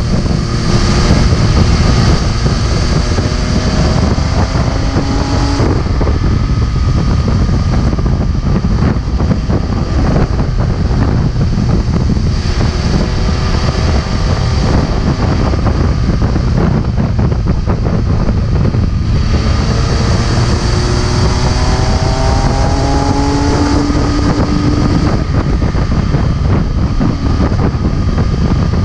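MV Agusta F3 675's three-cylinder engine running under way, its pitch climbing under throttle three times, each climb cut off sharply. Heavy wind rumble on the microphone throughout.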